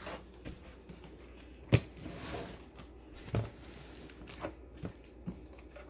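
Scattered clicks and knocks of toys and packaging being handled, with one sharp knock a little under two seconds in and a duller one about three and a half seconds in.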